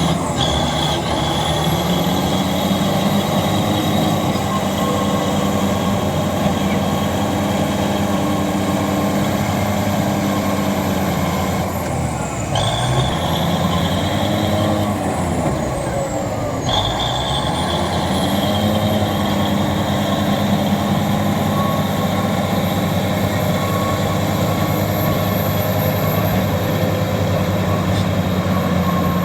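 Large crawler bulldozer's diesel engine running steadily under load. About twelve seconds in, the engine speed drops and picks back up, then dips and recovers once more a few seconds later.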